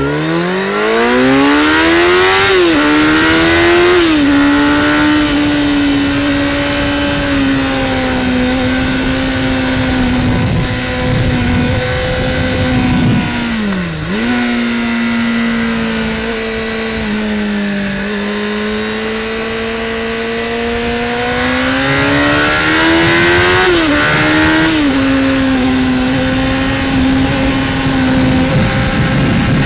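Sport motorcycle engine heard from the rider's seat, pulling hard through the gears at the start with quick upshifts, then holding a steady cruise. The engine note drops sharply as the throttle closes about halfway through, picks up again at a lower pitch, and climbs through more upshifts near the end, with wind rush throughout.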